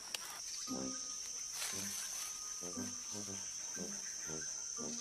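Steady high-pitched drone of forest insects, with a run of short, low pitched sounds repeating about once every half-second to a second.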